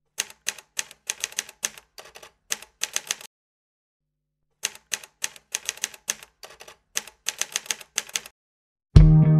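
Typewriter keystroke sound effect: two quick runs of clacking keys with a pause between them, matching text typed out on screen. Music comes in just before the end.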